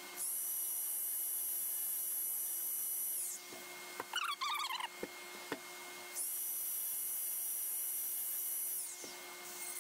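Electric drill spinning a rotary burr against birch wood in a bark-filled crack, run twice for about three seconds each with a steady high whine that winds down as the trigger is released; brief scraping and handling knocks in between. The burr is clearing bark residue out of the crack to prepare it for inlay.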